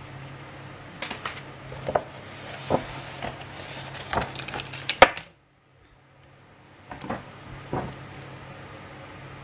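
Paper packaging being handled on a table: rustling and light taps from a paper envelope and shopping bag, with one sharp tap about five seconds in. A steady low hum runs underneath, cut by a brief silent gap just after the sharp tap.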